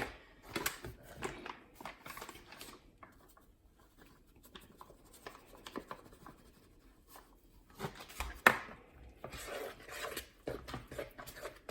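Metal spoon scraping and stirring in a bowl, mixing mashed sweet potato and flour into a wet dough, with one sharp knock against the bowl about eight and a half seconds in.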